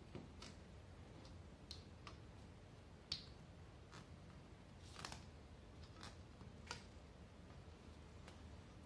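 Faint, scattered clicks and ticks, about eight of them with the sharpest about three seconds in, as thread is pulled taut and hooked around the small nails of a string art board.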